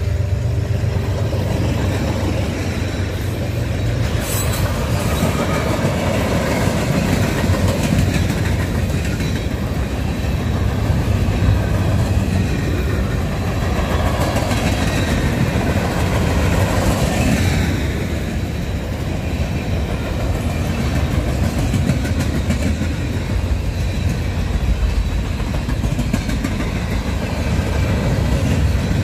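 Cars of a CSX mixed freight train (tank cars, covered hoppers, boxcars) rolling past: a steady rumble of steel wheels on rail with clickety-clack.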